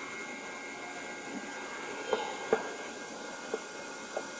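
X Smart 3D printer running while it feeds filament toward the hot nozzle: a steady fan-and-motor whir with faint thin whining tones, and four short clicks in the second half, the second of them the loudest.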